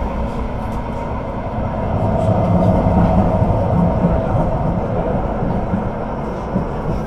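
Duewag/Kiepe B80D Stadtbahn light-rail car running on the track: a steady rumble with a faint steady whine. It grows louder for a couple of seconds in the middle and then eases again.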